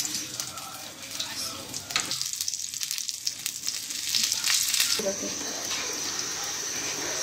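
Hot oil sizzling and crackling under bread sandwiches shallow-frying on a flat griddle. The crackle grows denser and louder in the middle. About five seconds in it changes to a steadier, evener sizzle with a thin high tone.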